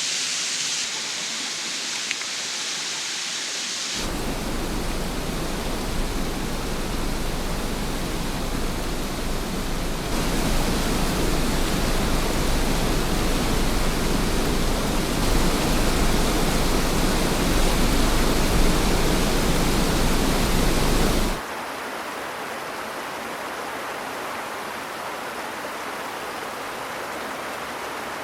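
Waterfalls rushing: a steady roar of falling water that changes abruptly three times as one waterfall gives way to another, the middle stretch loudest and deepest.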